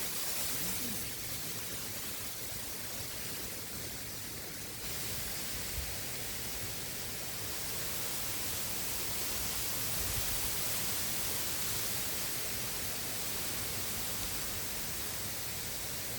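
Steady rushing hiss of a flowing river, with a few brief low rumbles of wind on the microphone.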